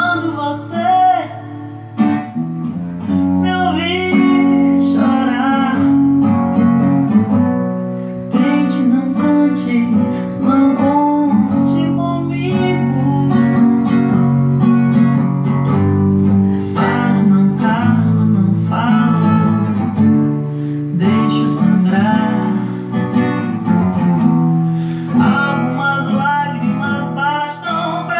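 Music carried by a strummed acoustic guitar.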